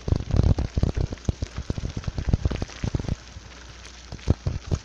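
Wind buffeting and handling knocks on a handheld phone's microphone while riding a bicycle: irregular low thumps and crackle, dense for the first three seconds, then thinning to a few single knocks near the end.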